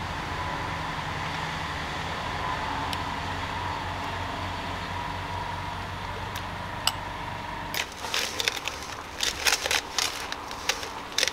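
A hand squishing and mixing wet spice masala in a stainless steel bowl: irregular wet clicks and squelches starting about eight seconds in. Before that, only a steady low background hum with a few faint isolated clicks.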